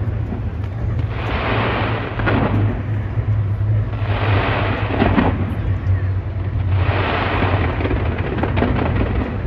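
Fireworks from the Taipei 101 display going off in rapid succession: a continuous low booming rumble, with three louder rushes of noise about every three seconds.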